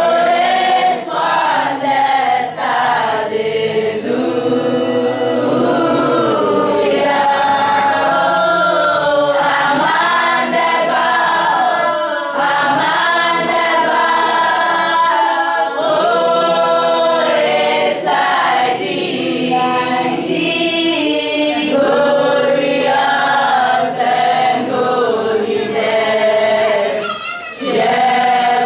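A group of students singing a song together as a choir, unaccompanied voices without a break.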